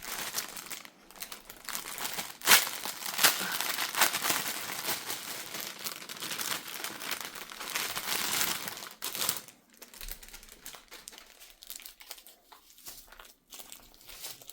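Plastic packaging crinkling and crackling as it is handled and pulled open, with a few sharp snaps about two and a half to three seconds in. The crackling is dense for about nine seconds, then thins to scattered lighter crinkles.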